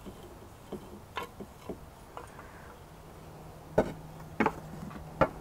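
Light, scattered knocks and taps of a small wooden scoop against earthenware clay dishes as dry amaranth seed is scooped out, with a few sharper knocks in the second half.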